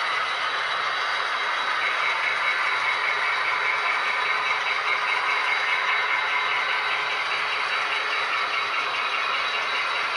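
HO scale model freight train of boxcars and tank cars rolling past on the track, making a steady, fairly high-pitched rolling noise of small wheels on the rails.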